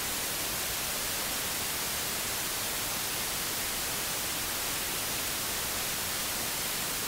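Steady hiss of a recording microphone's noise floor, even throughout and strongest in the high range, with no other sound on top.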